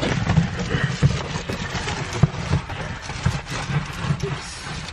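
Camera handling noise: irregular knocks, bumps and rustling as the camera is moved about and brushes against hair.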